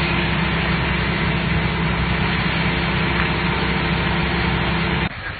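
Water tanker truck's engine running steadily to drive its pump, with the hiss of the high-pressure water jet from the hose on its roof. The sound cuts off abruptly about five seconds in.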